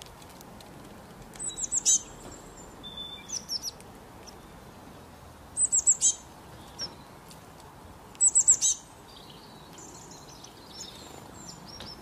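Small songbird calling: three quick runs of four or five high, falling notes, with softer chirps between them, over a faint steady hiss.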